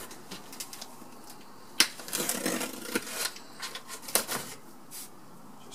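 A cardboard box being handled and opened by hand: scattered clicks and scrapes of fingers and packing on the cardboard, with one sharp knock about two seconds in and a short stretch of rustling after it.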